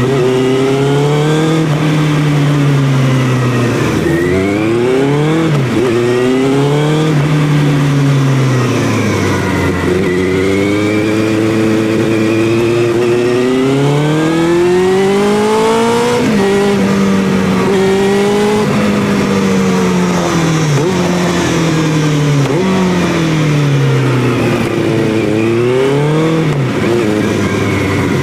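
Benelli 600i's inline-four engine running loud through its exhaust while ridden, revs climbing and falling over and over with quick dips like gear changes and throttle blips.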